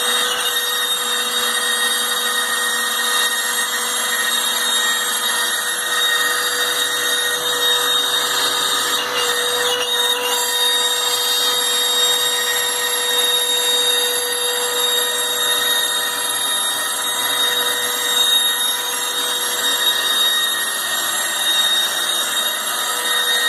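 Homemade CNC router running a milling job: the spindle motor's steady whine mixed with the noise of the cutter working through the stock.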